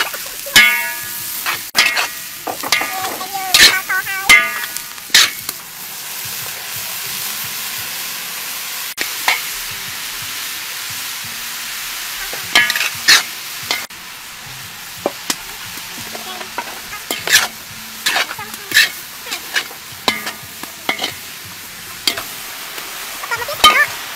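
Whole red chillies stir-frying in a large wok: a steady sizzle, with a metal spatula scraping and knocking against the wok every second or so. There are a few squeaky metal scrapes in the first few seconds.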